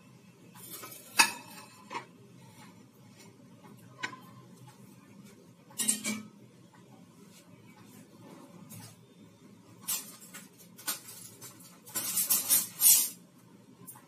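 Large serving plate handled and set down on a stone countertop: a sharp clink about a second in, further knocks around six and ten seconds, and a quick run of clatter near the end.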